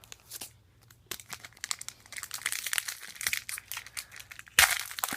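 Foil wrapper of a football trading-card pack crinkling as it is handled and opened, with a sudden loud crackle near the end.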